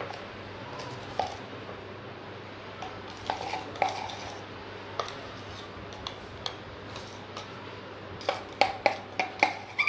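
Light metallic clinks and taps of a stainless steel tumbler and a palette knife as the tumbler is worked over a thick wet putty layer, each clink ringing briefly; a few scattered ones, then about six in quick succession near the end.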